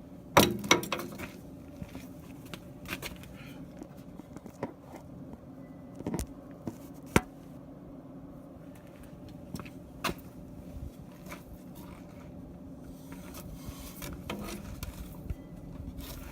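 Scattered sharp metallic knocks and clinks with some scraping, from work on the steel bucket, over a steady low hum. Two loud knocks come in quick succession right at the start, with a few more about six, seven and ten seconds in.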